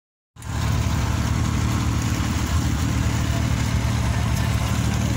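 Passenger launch's engine running steadily under way, heard on board: a low, even drone with the hiss of water and wind over it.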